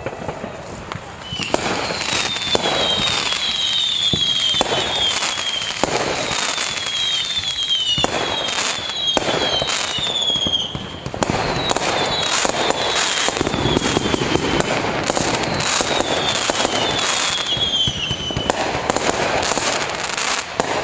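Fireworks display: a dense run of bangs and crackles, with repeated short whistles falling in pitch.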